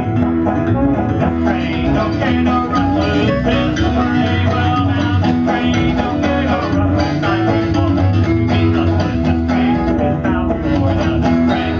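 Live acoustic band playing an instrumental passage in a bluegrass-country style: a soprano saxophone carries a wavering melody over strummed banjo and guitar and a steady low bass line.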